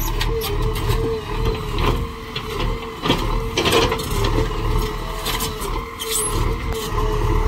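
JCB 3DX backhoe loader working: its diesel engine runs with a low rumble and a steady whine, under scattered metallic knocks and short high squeals near the start and about six seconds in. A brief rush of noise comes a little past halfway.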